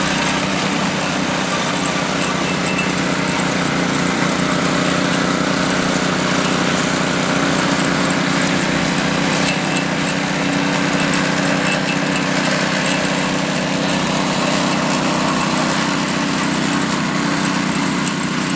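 Concrete power trowel's engine running steadily as the machine smooths the fresh concrete, a constant drone with no change in pace.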